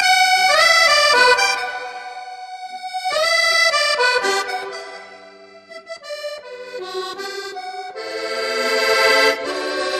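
Instrumental music: a melody of held notes on a reedy, accordion-like instrument, fading in the middle and swelling again near the end.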